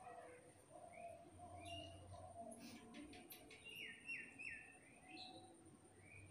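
Faint bird chirps, with three quick falling notes about four seconds in, over a faint low hum.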